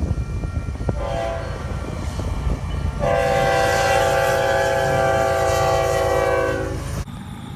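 Locomotive air horn of the Nathan K5HL five-chime family sounding a steady chord over the low noise of the train. It comes in about a second in, turns much louder at about three seconds and holds until just before seven, then the sound cuts off suddenly.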